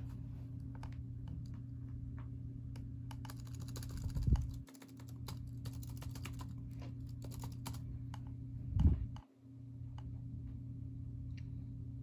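Typing on an iBook clamshell's keyboard: a run of key clicks, densest around four seconds in, over a steady low hum. Two dull low thumps, about four and a half seconds apart, are the loudest sounds.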